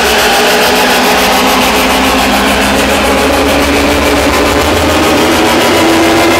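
Loud electro dance music from a DJ set over a PA, in a build-up: a noisy sweep with a slowly rising tone over a steady bass.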